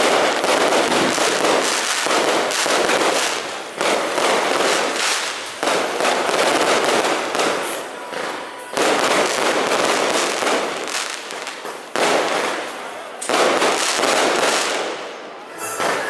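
Fireworks going off in dense, rapid crackling volleys of many sharp pops, each wave starting suddenly and fading, about five waves in all.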